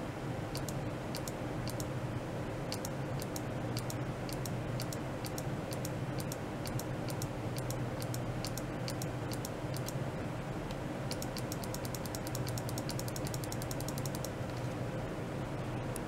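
Steady electrical hum with sharp, high-pitched clicks on top, about two a second, quickening to a fast even run of clicks about eleven seconds in, then slowing again near the end.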